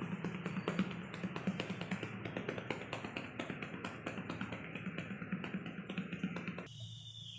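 Rapid, rhythmic hollow-hand tapping (cupped-hand chest percussion) on a patient's chest, the postural drainage technique for loosening phlegm in the lungs, cut off abruptly near the end.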